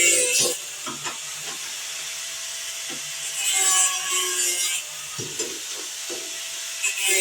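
Grinder running, pressed three times against aluminum horseshoes for about a second each: a hissing grind in which its pitch drops under load, between stretches of free running.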